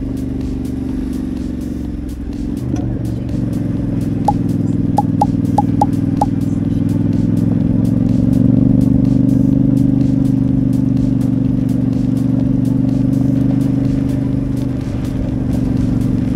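Yamaha Ténéré 700's parallel-twin engine running at steady riding revs, getting a little louder about eight seconds in. Five short high tones sound over it between about four and six seconds in.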